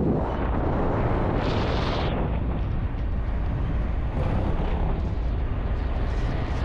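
Steady heavy rumble of a vehicle on the move, with wind buffeting the microphone, and a short burst of hiss about a second and a half in.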